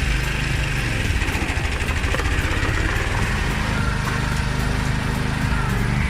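Small engine running steadily at a constant speed, driving a homemade wood-cutting machine.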